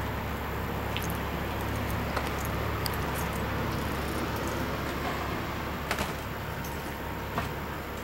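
Steady low rumble and hiss of handling and air noise on a handheld camera's microphone, with a few scattered sharp clicks and knocks as someone steps up into a travel trailer. The rumble eases a little about five seconds in.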